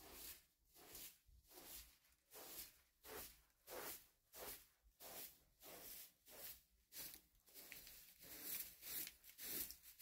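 Straw hand broom (a traditional çalı süpürgesi) sweeping a carpet: short brushy swishes of bristles dragged across the pile, about two strokes a second in a steady rhythm.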